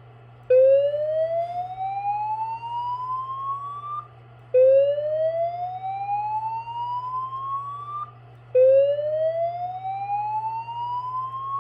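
Fire-alarm evacuation 'whoop' tone through a System Sensor SPSR speaker strobe. It plays as three slow rising sweeps of about three and a half seconds each, with short gaps between them. This is the evacuation signal that alternates with the recorded 'May I have your attention' voice message.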